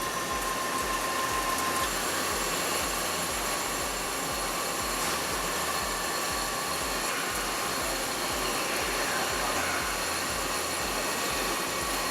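Hwacheon Hi-TECH 550BB CNC lathe running as it turns a drill pipe adaptor: steady machining noise with several high, steady whining tones over it.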